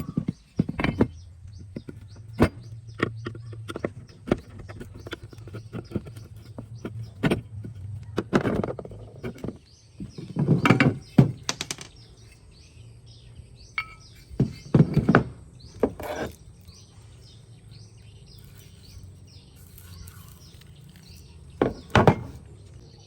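A run of irregular knocks and clunks over a low steady hum, loudest about ten to eleven seconds in and again near the end.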